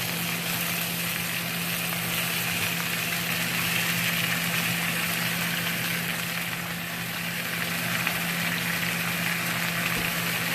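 Pork pieces frying in a hot wok with peppers and onions: steady sizzling, with a steady low hum underneath.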